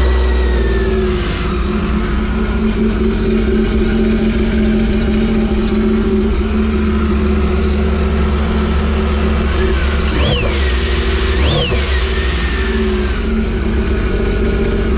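Sea-Doo RXT-X's Rotax three-cylinder engine, just started, idling steadily, blipped twice to a quick rev about ten and eleven and a half seconds in. It runs through a short water box with the resonator still fitted and sounds quiet.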